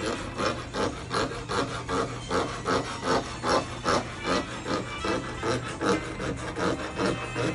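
Hand file rasping back and forth over a jewelry ring in quick, even strokes, about three a second.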